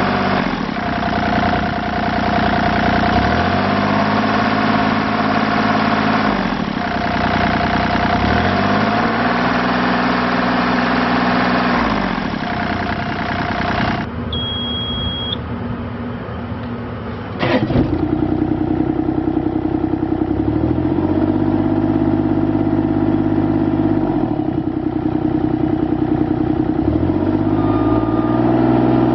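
Bobcat E35i mini excavator's diesel engine running as the machine is worked, its speed rising and falling in cycles of a few seconds each. A short beep comes about halfway through, followed shortly after by a sharp knock.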